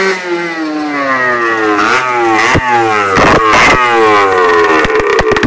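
Two-stroke Minarelli AM3 50cc engine bored to 75cc (Polini kit) with a Leovince expansion exhaust revving: the pitch falls away, picks up once and falls again, with a few sharp cracks and the separate firing beats coming through as it drops toward idle near the end. The engine is running rich, which the owner puts down to an oversized carburettor jet and a dirty air filter.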